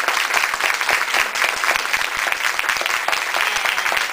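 Audience applauding, a dense, steady round of many hands clapping.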